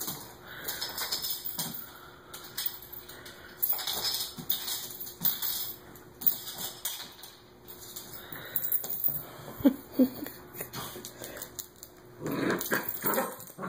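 Small dogs playing: scattered light clicks, taps and scuffles of paws and a flung toy on a wood floor and rug. There are a couple of brief dog vocal sounds about ten seconds in, and a short stretch of dog vocalizing near the end as the two dogs tussle.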